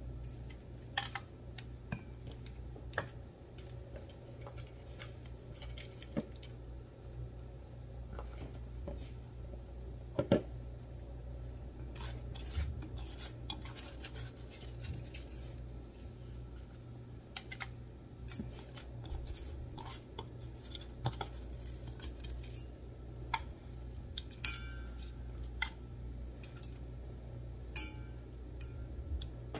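Crushed ice being scooped and hand-packed into balls in a stainless steel bowl: scattered crunches, short scrapes and clinks of ice against the metal bowl. A steady low hum runs underneath.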